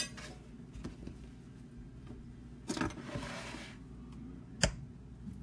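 Handling sounds on a kitchen counter over a low steady hum: a short scraping rustle about three seconds in, and a single sharp knock near the end, as the plastic mixing bowl is moved into place.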